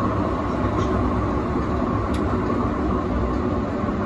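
Melbourne A2-class tram in motion, heard from inside at the front: a steady, even running rumble of the tram on its rails.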